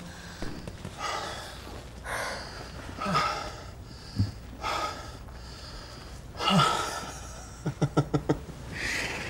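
A person breathing hard in loud gasps about once a second, with a few short voiced sounds and a quick run of short panting gasps near the end.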